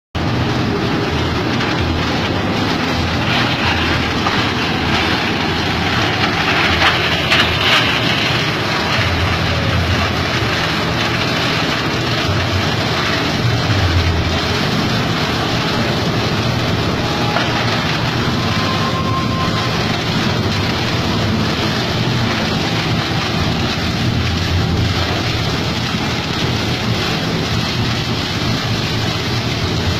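Plastic-bottle shredder driven by an 8 hp diesel engine, running steadily with a low engine rumble under a dense clatter, a little louder around a quarter of the way in.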